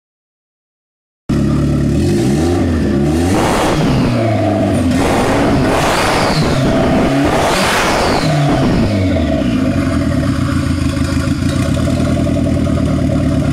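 Turbocharged Fiat Brava engine, tuned, cutting in about a second in and revved several times, each rev rising and falling in pitch with a short rush of noise near its top, then settling to a steady idle.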